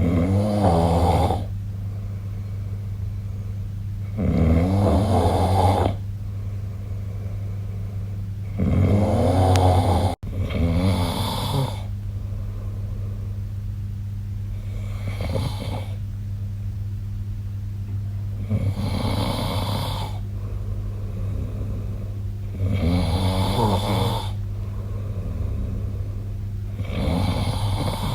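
A sleeping person snoring, one snore on each breath about every four seconds, the first few louder than the later ones. A steady low hum runs underneath.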